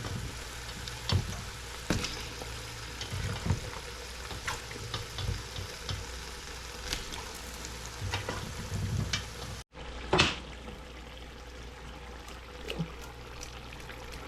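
Chopped ginger, garlic, celery and habanero pepper sizzling in hot oil in a pot, with a spatula stirring and knocking against the pot now and then. The sound breaks off for a moment about ten seconds in.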